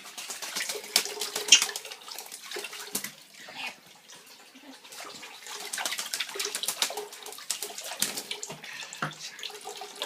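A pet bird splashing as it bathes in water, in two rapid flurries with a quieter spell of a couple of seconds in between.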